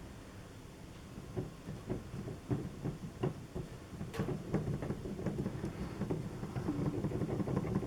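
Irregular light knocks and clicks of hands and tools working inside the piano action, fitting a hammer back into place, getting a little busier near the end.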